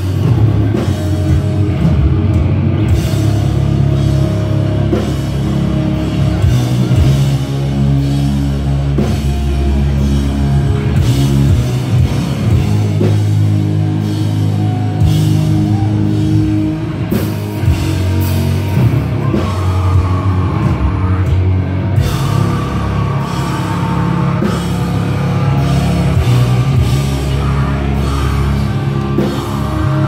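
Metalcore band playing live at full volume: heavily distorted guitars and bass over a fast drum kit, with a vocalist screaming into the microphone, heard from among the crowd.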